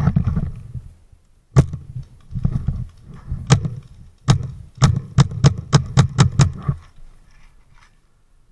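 Sharp pops of an air-powered game gun firing. There is a single shot about a second and a half in, then two spaced shots, then a quick string of about seven shots at roughly four a second that stops about seven seconds in. Low thudding from movement and gear handling runs under the shots.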